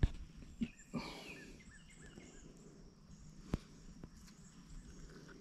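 A short run of quick bird chirps about a second in, over a faint outdoor background, with a couple of sharp clicks, one at the start and one about three and a half seconds in.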